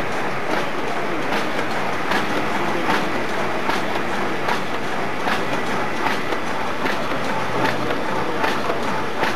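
WS-9905 paper food container forming machine running: a steady mechanical clatter with a sharp clack repeating a little more than once a second.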